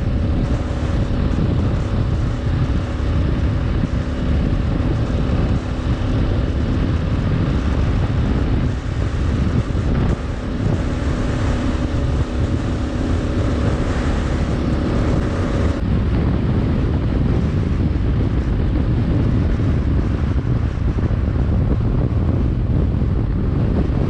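Heavy wind buffeting the camera microphone on a Kawasaki KLR 650 riding at road speed, with a steady drone from the motorcycle underneath. The faint steady tone in the drone drops out about two-thirds of the way through.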